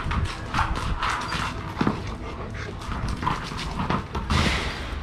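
Dogs panting and scuffling in play, with short clicks and scuffs and a breathy burst near the end.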